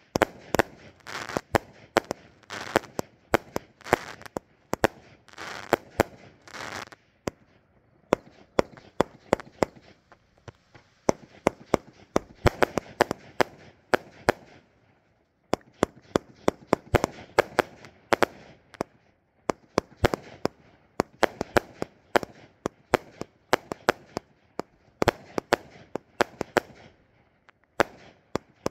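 A 58-shot, 500 g consumer firework cake firing: tube after tube launches and bursts overhead in quick runs of sharp bangs, with hissy stretches between. There is a short lull about halfway through.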